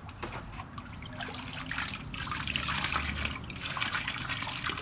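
Water poured from a hand-held container in a stream, trickling and splashing into a shallow plastic kiddie pool.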